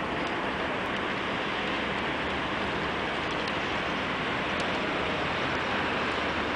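Steady rushing hiss of distant town road traffic, heard from high above.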